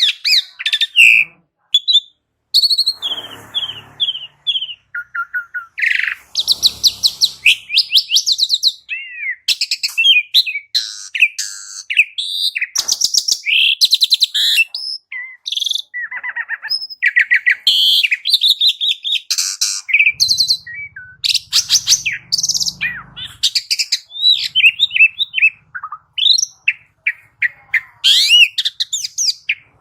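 Asian pied starling (jalak suren) singing a long, varied song: quick whistles, chirps and slurred notes mixed with harsh rapid rattles, in phrases separated by short pauses.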